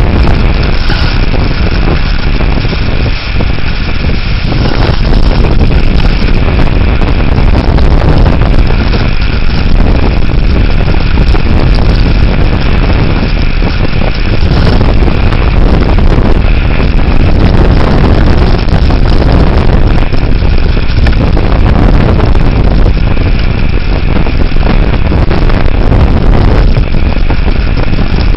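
Damaging thunderstorm winds buffeting the microphone: loud, unbroken wind noise with a deep rumble and a hiss above it, with only a brief dip about three seconds in.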